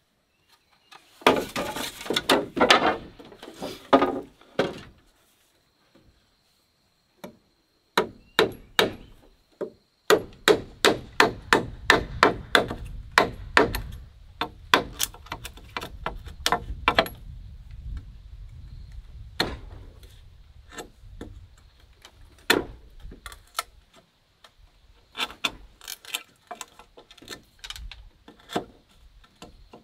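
Repeated hard strikes on wood, with a quick run of about three blows a second in the middle stretch. The first few seconds hold a denser, scraping-like stretch of wood noise.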